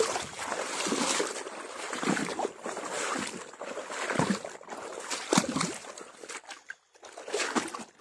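Water sloshing and splashing in uneven bursts as an eel trap is pulled from shallow water.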